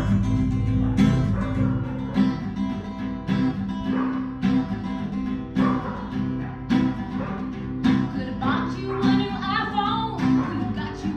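Acoustic guitar strummed in a steady rhythm, with a strong accented strum about once a second. A woman's voice comes in singing along near the end.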